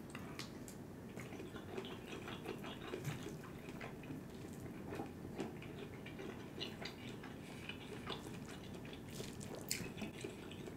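Quiet, close-miked wet chewing and mouth clicks of a man eating stir-fried noodles. Near the end come light clicks of a plastic fork digging into a foil tray.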